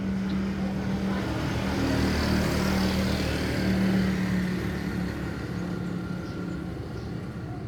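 A motor vehicle passing: its noise rises to a peak about two to four seconds in and then fades, over a steady low hum.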